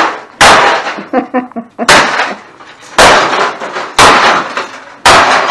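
Hard blows of a swung demolition tool smashing junk: five sharp cracking impacts about a second apart, each followed by a brief clatter of breaking pieces.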